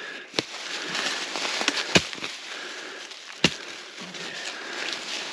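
A digging tool chopping at a tree root in sandy soil: three sharp strikes about a second and a half apart, with lighter knocks and scraping between.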